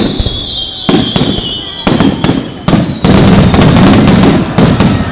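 Aerial fireworks display: loud booms of shells bursting overhead, roughly one a second, packed densely together in the second half, with a high whistle sliding down in pitch over the first couple of seconds.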